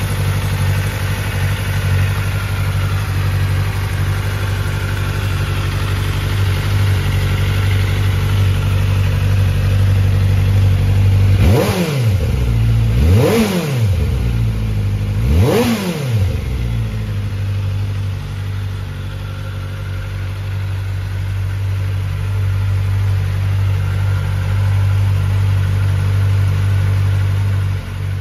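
2024 Kawasaki Ninja ZX-4R SE's 399 cc inline-four engine idling steadily. About halfway through it is revved three times in quick succession, each rev rising sharply in pitch and falling straight back to idle.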